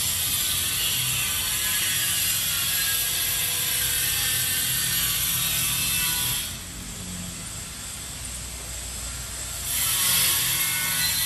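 A hand-held pad scrubbing fast over glazed ceramic wall tiles to wipe off excess grout, a steady scratchy rasp. It stops for about three seconds past the middle, then starts again.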